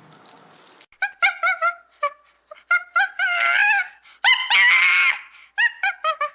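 An animal's repeated short, high-pitched calls, with two longer drawn-out calls in the middle.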